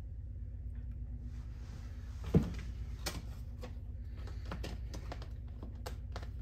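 Handling a plastic ski boot on a wooden workbench: one dull thump about two and a half seconds in, then light clicks and knocks of the plastic shell being turned over in the hands, over a steady low hum.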